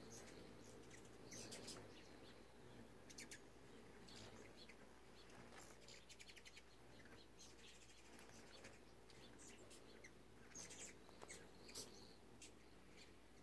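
Hummingbirds' faint, high, short chip and chatter calls around a nectar feeder, scattered throughout, with quick clusters of rapid ticking chatter about one to three seconds in and again around ten to twelve seconds in.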